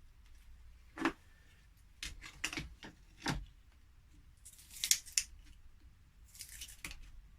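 A hobby knife working a laptop battery pack apart: several sharp clicks and knocks of hard plastic, then two short scraping strokes of the blade.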